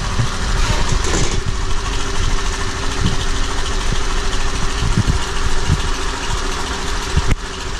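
Honda Activa scooter's single-cylinder engine idling steadily after its rebuild, running evenly 'like a clock'.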